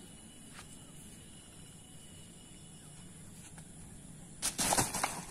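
A high jumper landing on a thick mattress used as a landing pad: a sudden, loud, short burst of impact noise lasting under a second, near the end. Before it, only a quiet outdoor background with a few faint clicks.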